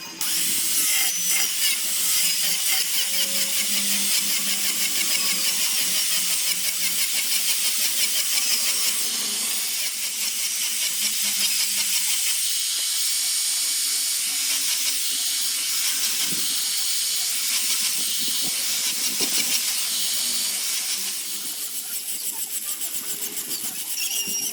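Small high-speed power tool working Torreya wood: a continuous hiss with a fast flutter, and a low hum that fades about halfway through.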